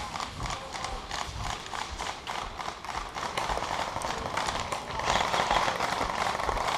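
Rapid clicks and knocks in the middle of an airsoft game, growing denser and louder about five seconds in.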